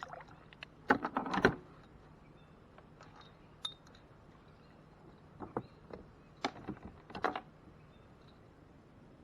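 A few sharp knocks and rattles of gear against a kayak's hull, in two clusters: one about a second in and another between five and seven and a half seconds in.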